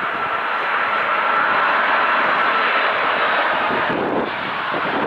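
Boeing 747-400 freighter's four jet engines running at approach power as the aircraft flares just above the runway: a loud, steady rush with a thin high-pitched whine that fades about three seconds in.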